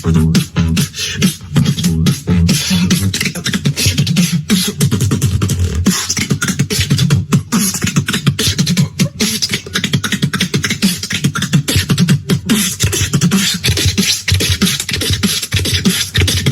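A solo beatboxer performing a fast, bass-heavy routine: deep vocal bass tones under quick, rapid-fire mouth-made kick, snare and hi-hat strokes.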